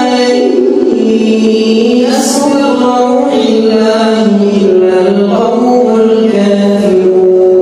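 A man reciting the Quran solo in the melodic tajweed style, holding long notes that glide slowly up and down, with no instruments.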